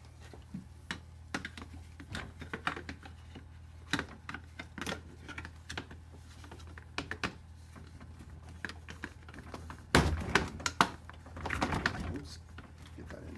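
Plastic side bracket of a Samsung RF4287HARS freezer drawer being handled and fitted onto its rail: a run of light, irregular plastic clicks and taps over a low steady hum. About ten seconds in there is a louder cluster of knocks and rattles as the bracket is pushed into place.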